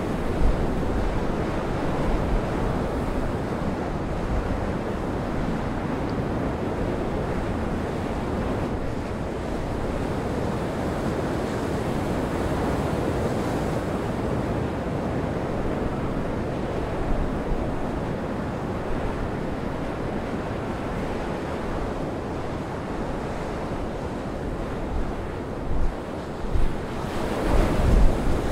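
Heavy ocean surf breaking in a gale, with strong wind rushing and buffeting the microphone; a few harder gusts thump on the microphone near the end.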